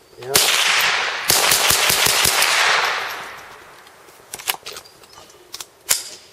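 Rifle fire: a shot about a third of a second in, then a quick string of shots in rapid succession over the next two seconds, the report rolling away in echo. A few sharp clicks follow near the end.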